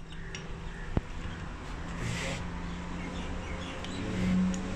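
Steady low hum with faint bird chirps, a single sharp click about a second in and a short rustle about two seconds in, as the metal parts of a diesel injection pump are handled.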